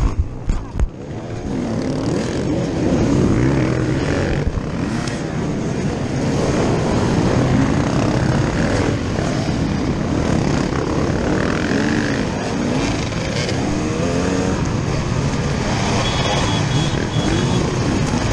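A pack of dirt bike engines revving and accelerating hard, with the rider's own engine loudest; the pitch keeps rising and falling through the gear changes. A few sharp knocks and a brief drop in the engine sound come about a second in.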